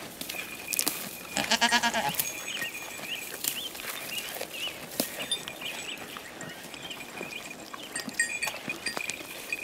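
Domestic goat giving one short bleat about a second and a half in, among small clicks and snaps of goats browsing pine twigs.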